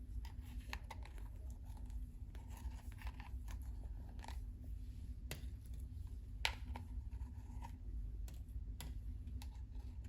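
Slime being worked by hand, giving scattered small sticky clicks and crackles, with one sharper click about six and a half seconds in, over a low steady hum.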